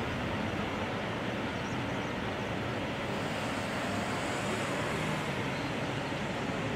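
Jet engines of a Boeing 777-300ER, its General Electric GE90-115B turbofans, at low taxi power: a steady rumble and hiss as the airliner rolls slowly past.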